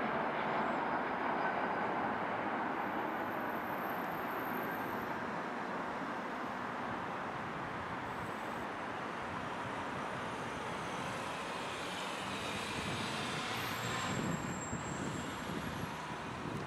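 Bombardier CRJ900's twin rear-mounted turbofan engines giving a steady rushing jet noise as the airliner lands. The noise eases slowly and swells a little again a few seconds before the end.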